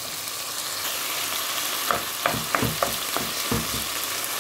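Diced chicken fillet frying in olive oil with onions in a nonstick pot, a steady sizzle. From about halfway, a wooden spoon stirring it gives a quick run of knocks and scrapes against the pot.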